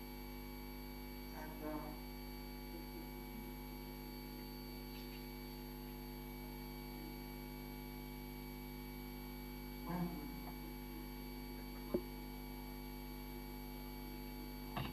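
Steady electrical mains hum made of several fixed tones, with a single sharp click about twelve seconds in.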